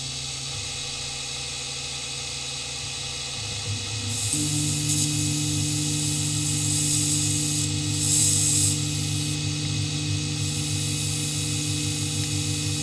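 Grizzly G0759 mill/drill running, its spindle-mounted cutter milling a sheet of acrylic: a steady machine hum. About four seconds in it grows louder as a deeper steady tone sets in, with brief hissing bursts around the middle.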